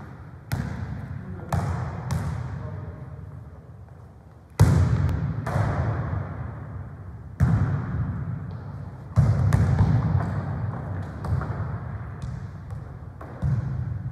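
A football being kicked and bouncing on the wooden floor of a sports hall during a football-tennis rally: about nine sharp thuds at irregular intervals, each ringing on in the hall's echo. The loudest hit comes about four and a half seconds in.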